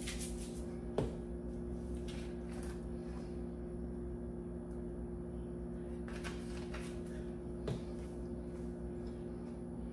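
Spice shaker being shaken over raw fish fillets in short spells of rapid rattling, with a sharp click about a second in and a knock near the end as a container is handled on the counter, over a steady low hum.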